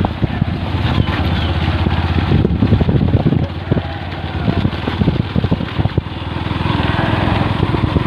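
Motorcycle engine running while riding along, with wind buffeting the microphone.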